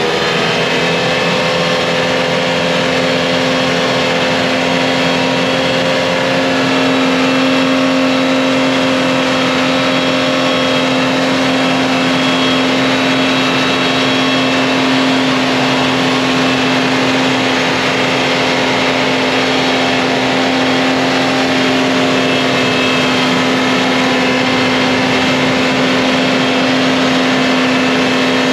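Jeep Cherokee XJ's engine revved up and then held at steady high revs as it works through deep mud on oversized mud tyres.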